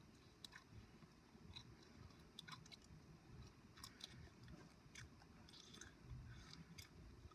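Near silence: room tone with a few faint, scattered soft clicks.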